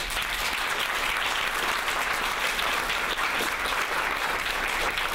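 Audience applauding: a steady, dense clatter of many hands clapping at once.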